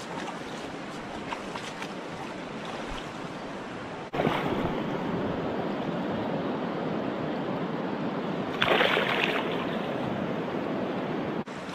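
Shallow river running over stones, a steady rush of water. About four seconds in it becomes louder and closer as the sound comes from right at the water's surface, where a rainbow trout is held in the current. A short burst of louder splashing about two-thirds through as the released trout swims off.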